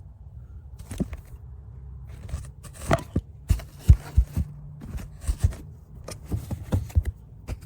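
Irregular sharp knocks and clicks, a dozen or so and loudest about 3 and 4 seconds in, as a remote-start module and its bracket are pushed and worked by hand onto a mounting stud under a car's dashboard.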